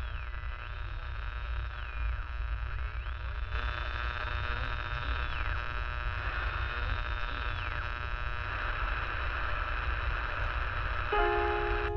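Dark ambient drone: a low rumble under a dense steady hum, with a thin high whine that glides down and back up several times. A piano note sounds near the end.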